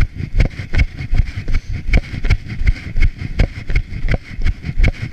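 A runner's footsteps on a dirt trail, heard through a body-worn camera: steady thuds close to three a second, each stride jolting the camera.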